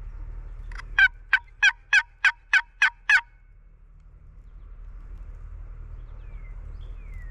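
Wooden turkey box call worked by hand, its paddle lid scraped across the box to make a run of about eight sharp hen yelps, about three a second, which stops after about two seconds.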